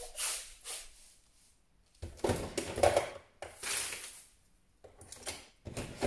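Clatter and knocks of things being handled at kitchen cabinets, in three short bursts with quiet gaps between.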